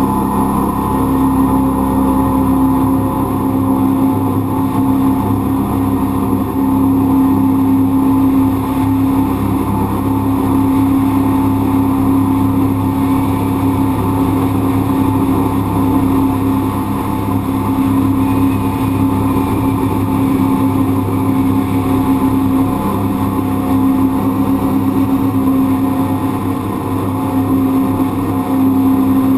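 A jet boat's 351 V8 inboard and jet pump running steadily at cruising speed, a constant engine drone with no change in pitch.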